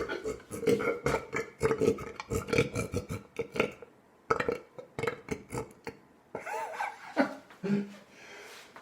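A man belching over and over: a dense run of short burps for almost four seconds, then more after brief pauses.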